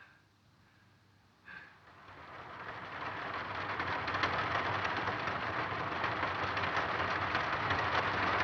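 Rain coming on about two seconds in and quickly building to a steady downpour, after two brief faint sounds.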